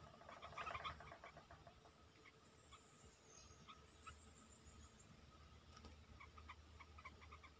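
Bulbuls chattering faintly: a rapid burst of harsh notes about half a second in, then scattered short call notes and a small cluster near the end, with a faint high, falling whistle around three seconds in.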